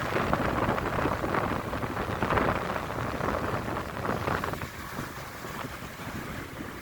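Sea waves breaking and washing on the shore, coming in noisy surges that ease off a little past the middle, with wind rumbling on the microphone.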